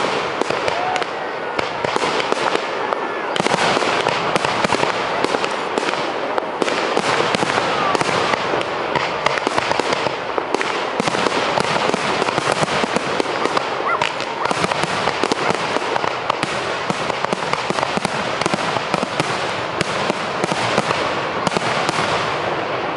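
Fireworks display: a dense, continuous barrage of shell bursts and crackling, with no pause.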